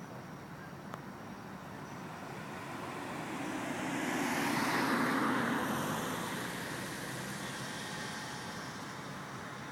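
A car driving past: tyre and engine noise that swells to a peak about halfway through and then fades away.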